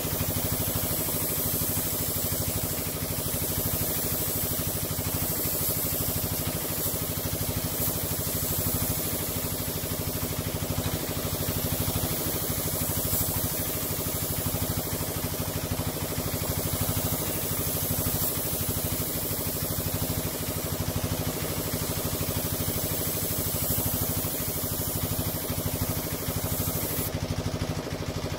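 Air compressor running steadily, with the high hiss of a paint spray gun in repeated passes as a coat of paint goes on; the hiss stops near the end while the compressor keeps running.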